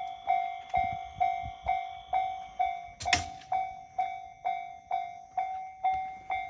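Japanese railway level-crossing warning bell ringing, an evenly repeating ding about twice a second, sounding for a train on the line. A short, loud noise cuts in about three seconds in.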